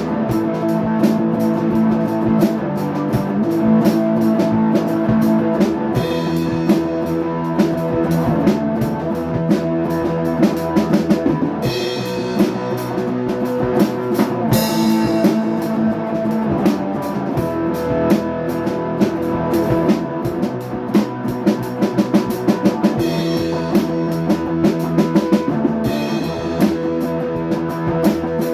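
Rock music played on drum kit and guitar: sustained chords over a busy drum beat, with brief bright crashes every few seconds.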